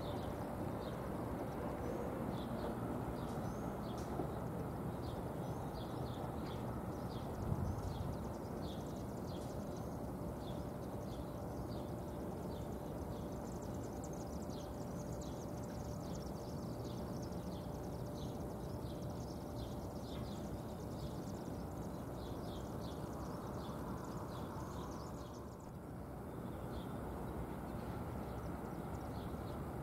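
Small birds chirping repeatedly over a steady low outdoor rumble, with one brief thump about seven seconds in.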